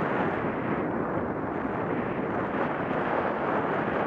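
Steady wind rush buffeting the microphone of a camera mounted on a moving rider, with no clear engine note or other distinct sound standing out.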